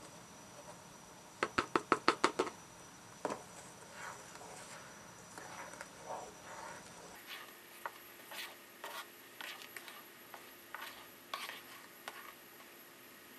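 Wooden spatula stirring boiling fig jelly in a metal saucepan, knocking and scraping against the pan's sides and bottom. About a second and a half in comes a quick run of about eight knocks, followed by scattered knocks and scrapes.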